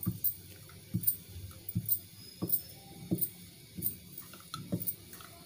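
Wooden rolling pin rolling puri dough back and forth on a round marble board, knocking against the board with each stroke: a string of short, dull knocks, roughly one every three-quarters of a second.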